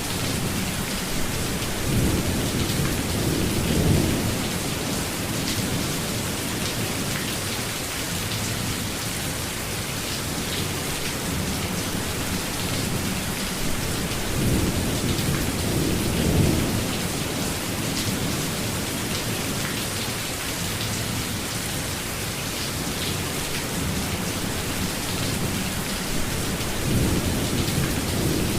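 Steady rainfall in a thunderstorm, an even hiss throughout. Low rolling thunder swells three times: about two seconds in, around halfway, and near the end.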